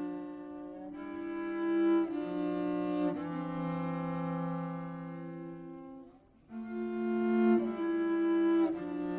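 Instrumental passage of a live jazz band playing sustained, held chords that change about once a second, with a short break about six seconds in.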